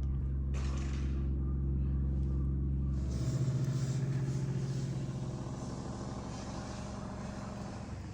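A large engine running with a steady low hum. About three seconds in, its note changes and a rushing noise rises, then the sound slowly fades.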